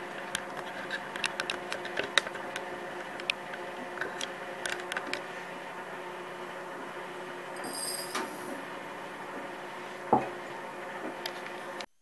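A steady low hum with scattered light clicks and taps, as of crockery and a plastic tub being handled, and a single knock about ten seconds in.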